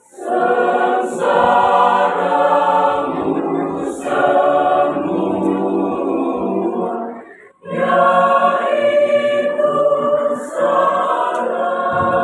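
Mixed church choir singing a cappella in parts, stopping together for a brief pause about seven and a half seconds in, then coming back in.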